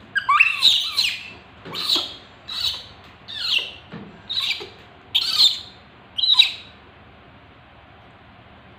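Baby monkey crying out in a series of about seven or eight high-pitched squealing calls, each falling in pitch, about one a second, stopping about a second and a half before the end.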